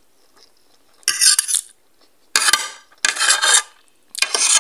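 Metal spoon and fork scraping across a plate as food is gathered up, in four short, loud scrapes about a second apart.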